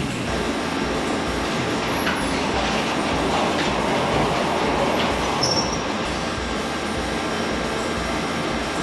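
Large wooden sliding door of a walk-in cooler rolled shut along its overhead metal track, rumbling steadily, with a short high squeal about five and a half seconds in.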